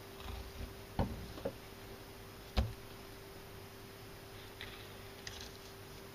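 Knife knocking against a cutting board while a tilefish is filleted, three sharp knocks in the first few seconds and fainter clicks later, over a faint steady hum.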